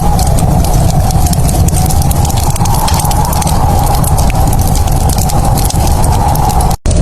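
Wood fire crackling and popping in a fireplace over a steady low rumble, with a brief drop to silence just before the end.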